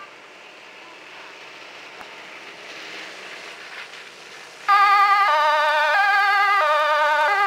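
Approaching fire engine, first its engine and tyres on the slushy road growing slowly louder, then about four and a half seconds in its two-tone siren switches on suddenly and loudly, alternating between a high and a low note about every 0.6 s.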